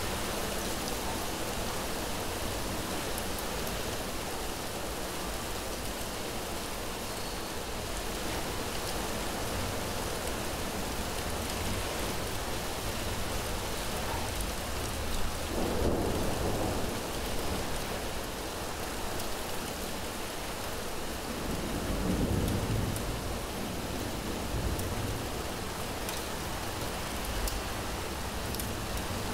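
Heavy rain falling steadily. Two low rolls of thunder swell up, one about halfway through and another several seconds later.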